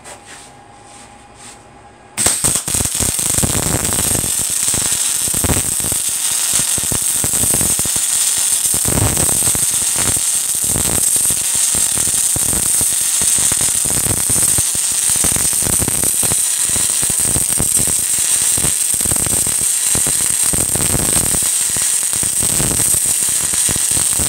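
MIG welding arc struck about two seconds in, then burning continuously as a weld bead is laid: a steady, loud crackling hiss with irregular pops.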